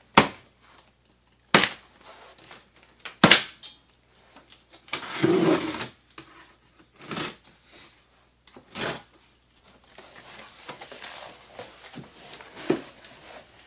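Plastic strapping bands snapping off a cardboard box: three sharp snaps in the first few seconds. Then cardboard and packing tape scrape and rustle as the box flaps are worked open, with a knock near the end.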